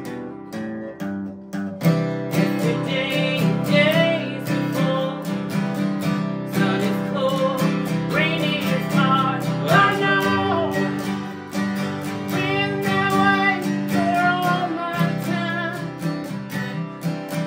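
Two acoustic guitars strummed together, with a woman singing lead over them from about two seconds in.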